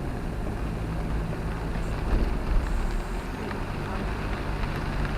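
Steady rumble of a camper van driving on a wet road, heard from inside the cab, with a hiss of rain and tyre spray. A brief louder bump comes about two and a half seconds in.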